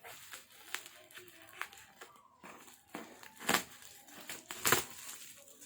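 Packaging crinkling and crackling as a parcel is opened by hand, with a run of short sharp crackles, the two loudest about three and a half and four and a half seconds in.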